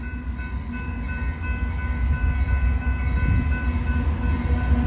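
Railroad grade-crossing bell ringing steadily over the deep rumble of an approaching Union Pacific rock train's diesel locomotives. The rumble grows steadily louder as the train nears.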